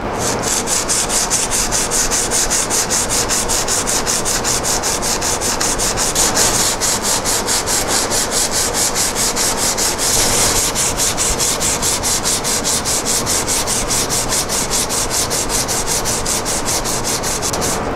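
Steel chisel back rubbed flat on adhesive-backed sandpaper, a dry scraping rasp in quick, even back-and-forth strokes, several a second. This is the flattening of the chisel's back, working the mill marks out through 150, 220 and 320 grit before honing.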